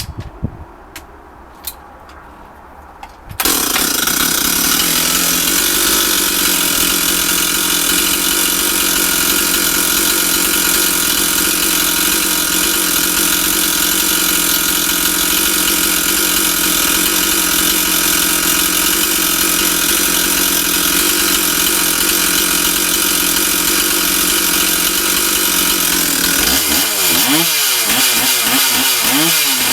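Stihl 044 two-stroke chainsaw: a few sharp clicks, then the engine catches about three seconds in and runs steadily. Near the end the throttle is blipped several times, the pitch rising and falling.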